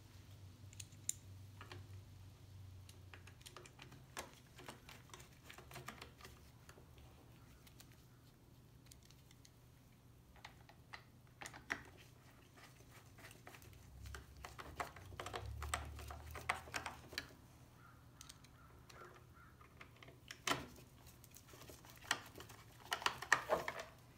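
Faint, scattered small clicks and taps of hands working on a 33cc chainsaw's plastic starter housing and pull cord, with a few louder clacks in the last few seconds.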